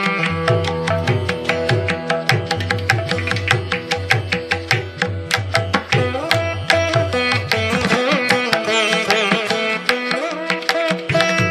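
Instrumental background music in an Indian classical style: sustained melodic notes over many quick drum strokes, with a gliding melody line about eight seconds in.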